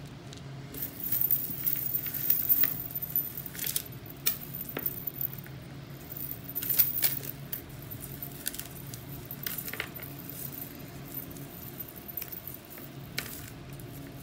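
Tangled metal chain necklaces and bead strands jingling and clinking as they are handled and pulled apart, in irregular clusters of small clicks.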